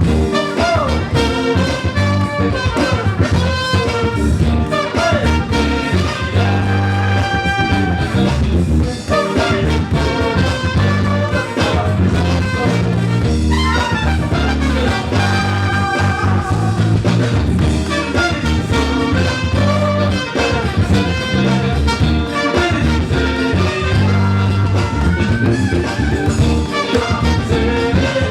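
Instrumental soul-funk band playing a groove, with drums, bass and a lead melody line over them.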